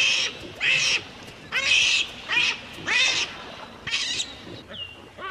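Baboon screams: a run of about seven short, high-pitched shrieks, spaced roughly half a second to a second apart.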